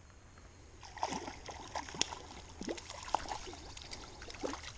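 A hooked trout splashing at the surface of a small stream as it is played toward a landing net: irregular splashes and plops, starting about a second in and going on in short bursts.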